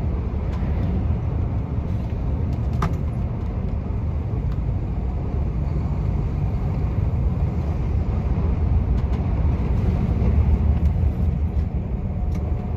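Heavy lorry heard from inside its cab while driving: the engine and tyres on the road make a steady low drone.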